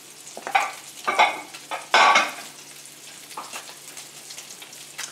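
Salmon cakes frying in butter in a skillet: a steady sizzle, with three short louder noises in the first two seconds.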